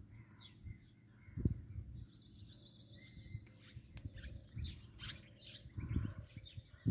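Small birds chirping and calling, with a fast rattling trill about two seconds in, over low rumbling thumps.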